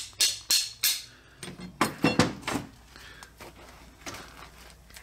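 Hammer knocking a pivot pin out of a drum-brake parking brake lever: a quick run of metal-on-metal strikes, about three a second, then a few louder, ringing blows about two seconds in.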